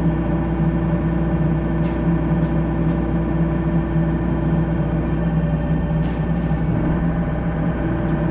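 Excavator's diesel engine running at a steady speed, a constant droning hum, with a few faint clicks.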